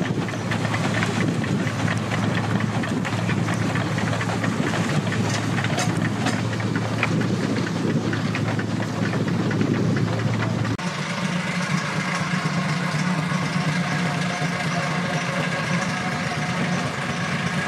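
1924 Foden C Type steam wagon's engine running as the wagon drives along, a steady mechanical beat with knocking and clatter. The sound changes abruptly about eleven seconds in, as the wagon is heard closer.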